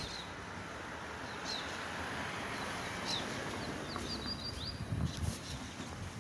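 Small birds chirping over a steady outdoor background hiss: a few short, high chirps, then a quick run of them a little past the middle. Low rumbling thumps come in near the end.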